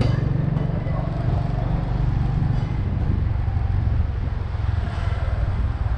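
Steady low rumble of a motorbike ride through city streets: the bike running and the noise of the road, with traffic around it.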